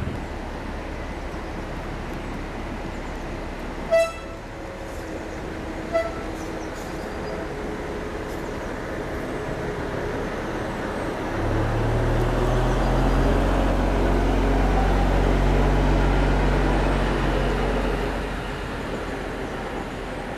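Diesel shunting locomotive sounds two short horn toots about two seconds apart, the second shorter. Then its engine rumble swells loud as it draws close, holds, and fades a couple of seconds before the end.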